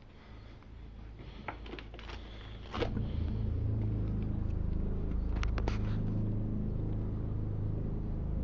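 A few sharp clicks, then about three seconds in a motor, likely an engine, starts abruptly and runs steadily with a low, even rumble.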